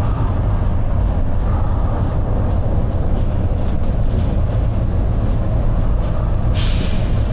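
Volvo B9TL double-decker bus's six-cylinder diesel engine thrashing at speed, a steady heavy low drone heard on board. A short burst of air hiss comes about six and a half seconds in.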